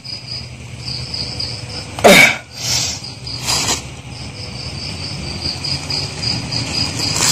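Crickets chirping in a steady, fast-pulsing high trill. About two seconds in, a loud brief sound drops steeply in pitch, followed by two shorter noises.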